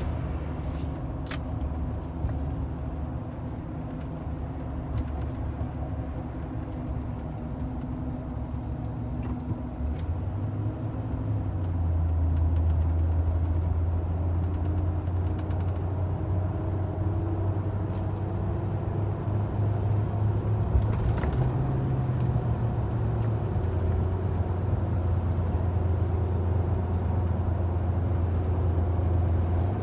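Cabin noise of a vehicle driving on 35-inch Toyo Open Country all-terrain tires with the windows up: a steady low drone of tire roar mixed with engine hum. About ten seconds in the hum steps up in pitch and gets louder, and it shifts again a little past the middle.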